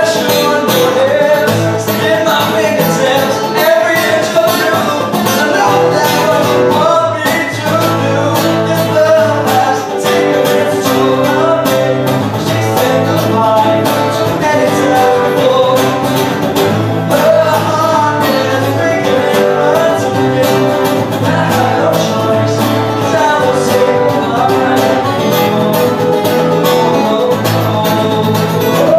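Two acoustic guitars playing a song together, strummed and picked, steady and loud.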